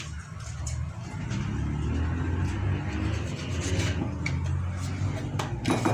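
A wooden block rubbed by hand back and forth over a wooden board, scraping, over a steady low rumble. A few sharp clicks come near the end.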